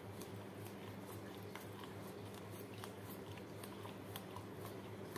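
Labrador licking yogurt out of a small plastic cup: faint, irregular wet licking clicks over a low steady hum.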